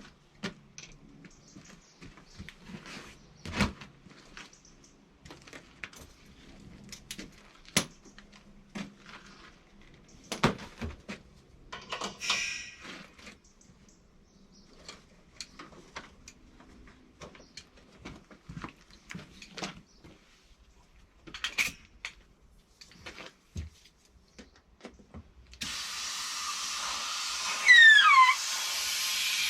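Scattered clicks and knocks as a tractor inner tube and tools are handled, then a steady hiss of air starts near the end, with a brief falling squeal, the loudest sound, just before the end.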